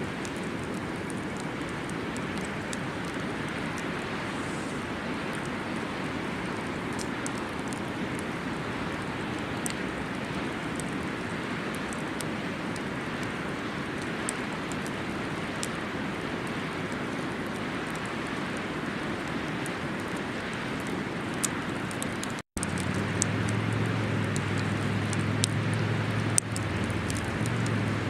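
Wood campfire crackling with scattered sharp pops over a steady rushing background noise. About twenty-two seconds in the sound cuts out for an instant, then resumes with a low steady hum added underneath.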